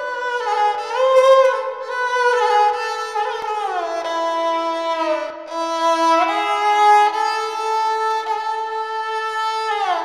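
Sarangi played solo: a bowed melody of long held notes joined by slides between pitches, with no percussion. Notes glide down about four seconds in and again near the end.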